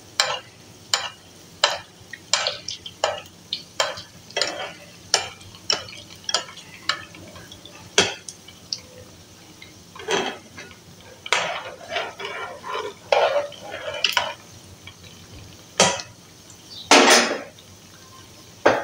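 Metal spoon scraping and clinking against a frying pan as hot desi ghee is gently stirred, in short strokes about once a second, over the faint sizzle of gulab jamun frying on a low flame. A longer, louder scrape comes near the end.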